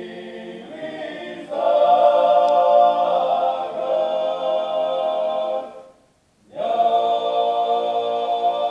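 Klapa, a Croatian male a cappella ensemble, singing in close harmony on long held chords. The voices swell louder about a second and a half in, break off briefly about six seconds in, and come back in on another held chord.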